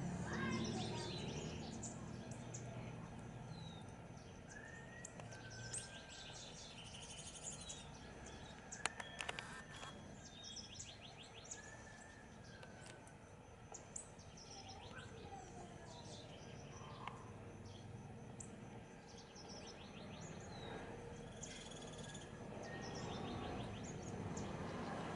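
Several wild birds calling in the background: short whistled notes that slide in pitch and quick chirping trills, scattered throughout. A few sharp clicks come about nine seconds in.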